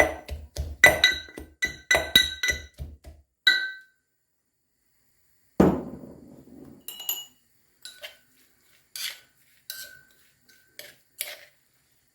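Pestle pounding masi sambal (dried Maldive fish, chilli, onion and salt) in a mortar: a quick run of ringing strikes for about three and a half seconds, then one heavier knock and a few scattered clinks as the sambal is worked and scooped out.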